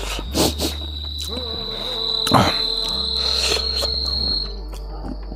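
A steady high-pitched whine that stops about four seconds in, over background music with a slow bass line, with a few scattered clicks.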